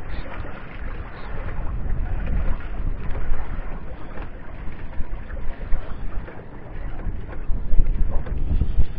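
Gusty wind buffeting the microphone, a low rumble that rises and falls, over the wash of the sea against a small boat.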